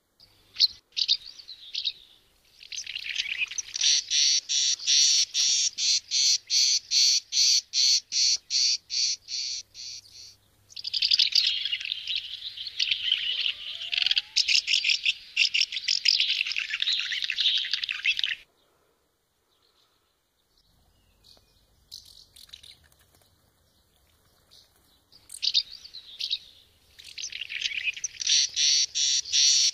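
House martins chirping: high calls repeated in quick, even series of about three a second, with denser chattering in between. The calling stops for several seconds past the middle, then starts again near the end.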